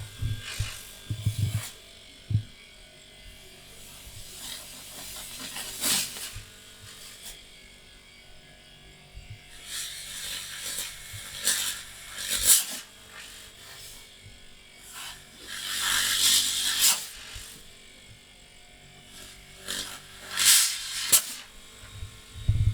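A refrigerator compressor running, its outlet tube stopped with a finger and the pumped air forcing its way out in about four loud hissing bursts. This is the finger test of whether the compressor pumps properly.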